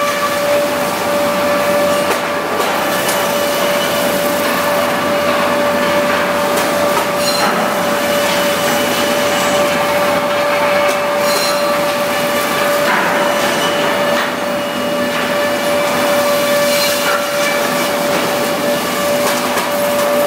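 REX wood planing machine running and planing timber: a loud, steady machine noise with a constant high whine throughout.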